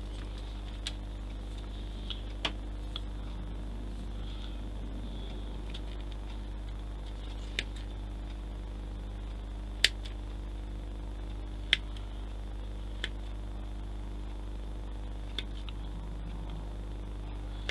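Scattered sharp clicks and ticks of small plastic kit parts and hand tools being handled on a workbench, about ten in all at irregular intervals, the loudest two near the middle. A steady low electrical hum runs underneath.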